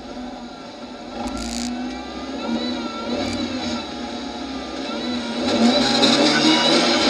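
Autocross car's engine heard from inside the stripped cabin, revved in swells at the start line, its revs climbing steeply and getting louder near the end.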